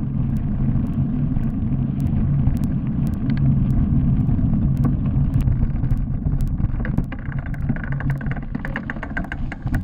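Mountain bike descending a loose gravel road: a constant heavy rumble of tyres and frame shaking over the stones, with sharp rattling clicks throughout. From about seven seconds in the rumble eases a little and crisper gravel crunches and clicks stand out.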